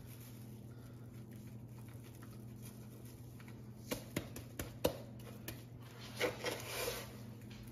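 Hands seasoning a raw turkey breast with dry rub: a few light taps and pats about halfway through, then a short rustling rub near the end, over a steady low hum.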